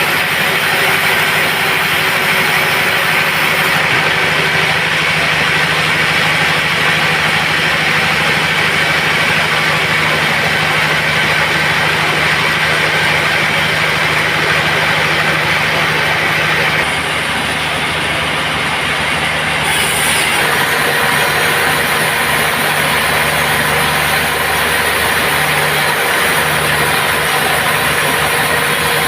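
Band sawmill running, a steady mechanical whir over a low hum, as teak is sawn. The sound dips slightly about 17 seconds in and shifts again about 20 seconds in.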